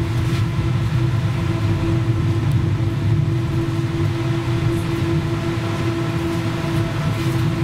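Inside a 71-911EM 'Lvyonok' tram running along the track: a steady low rumble with a constant electrical hum over it.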